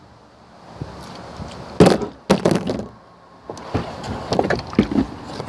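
Plastic water bottle flipped and landing on a hard surface with a sharp knock about two seconds in, then a second knock with a short clatter as it slides; a run of lighter knocks follows.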